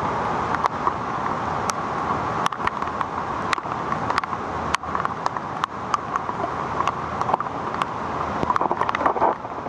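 Floodwater rushing across a paved road, a steady rushing noise with frequent short, sharp ticks scattered through it.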